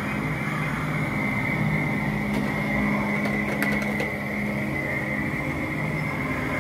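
Animatronic raven Halloween prop running, with a steady mechanical whirring drone and a few light ticks a little past halfway.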